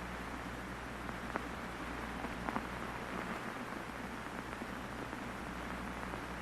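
Old film projector soundtrack noise: steady crackling hiss with a low hum and occasional sharp pops, about three of them.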